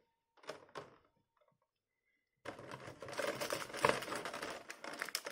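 Clear plastic blister-pack trays handled: a couple of light clicks, then, about two and a half seconds in, a dense run of plastic crackling and clicking as the trays are lifted and tilted.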